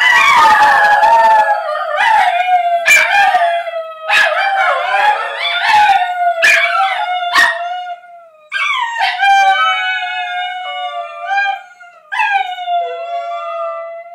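Three basenjis howling together: several long, wavering howls overlap, broken by short sharp yips in the first half. About eight seconds in the chorus thins to one or two held howls that trail off near the end.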